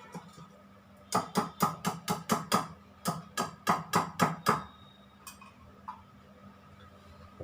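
A utensil beating cake batter in a mixing bowl, knocking against the bowl in a quick run of about sixteen strokes, roughly four or five a second, for some three and a half seconds starting about a second in.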